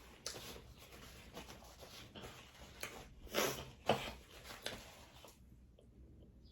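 Crackling, scraping handling noises of seafood being picked at and shelled, with a louder rasp about three and a half seconds in and a sharp snap just after. It goes quieter near the end.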